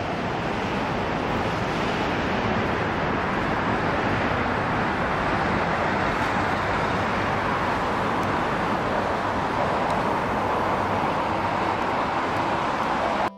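Steady noise of road traffic on a multi-lane highway, growing a little louder over the first couple of seconds.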